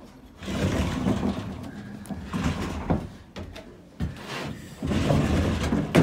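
Handling noise in two spells of rustling with small knocks, ending in one sharp knock, as a drinker and the wooden loft fittings are moved about.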